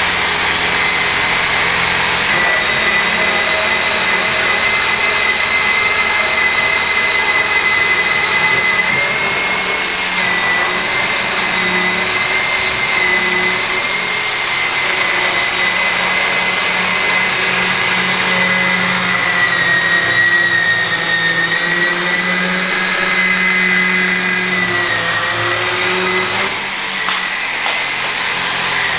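Portable pipe cutting and beveling machine running, its toothed saw blade cutting into a metal tube: a loud, steady motor whine with a high tone that wavers slightly in pitch over a lower hum.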